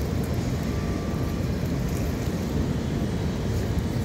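Steady low rushing noise of river water flowing below a dam, with no breaks or distinct events.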